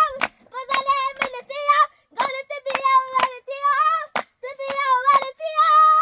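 A child singing a song in a high voice, with hand claps keeping time about twice a second. A note is held longer near the end.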